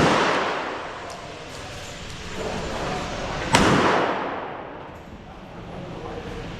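A single gunshot at a shooting range about three and a half seconds in, sharp, with a long echoing decay. The echo of a shot fired just before is still dying away at the start.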